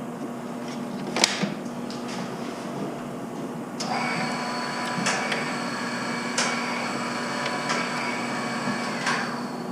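Electrical equipment: a steady low hum under a few sharp clicks. About four seconds in, a click starts a steady high-pitched electrical whine that holds for about five seconds and stops with another click.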